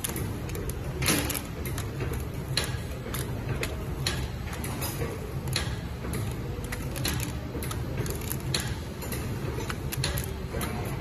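Granule packaging machine running with a steady low hum and a sharp mechanical clack about every one and a half seconds, each clack one bag-making cycle.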